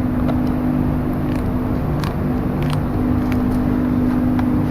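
A steady mechanical hum, like a motor or engine running, with a few faint clicks.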